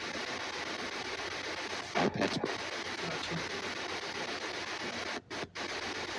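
S-Box ghost scanner (spirit box) sweeping the radio band: a steady hiss of static, with a short louder burst about two seconds in and two brief cut-outs near the end.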